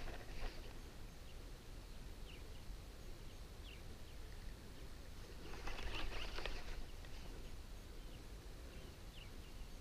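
Water splashing as a catfish caller rod (roepstok) is plunged into the river to call sharptooth catfish: a short splash at the start and a longer one about six seconds in. Short bird chirps sound in between over a low rumble of wind.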